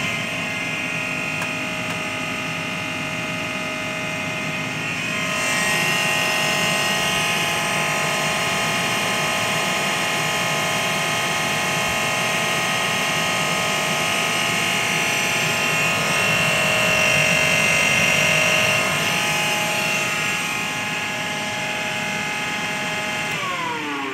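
AEG Lavatherm tumble dryer's drive motor running free with its belt off, spinning its fan impeller with a steady whine. It runs properly now that a faulty motor-direction relay on the control board has been replaced. Near the end its pitch falls as the motor slows.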